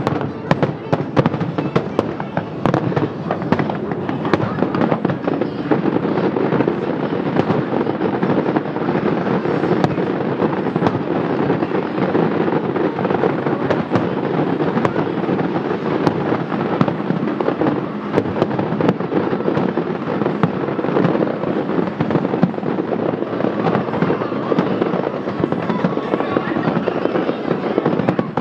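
Fireworks display: shells bursting in rapid succession with dense, unbroken crackling and banging, with no pause.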